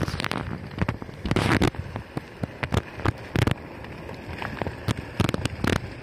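Onewheel rolling over rough, cracked asphalt: a steady rumble from the tyre broken by irregular crackles and knocks as it passes over cracks and loose grit.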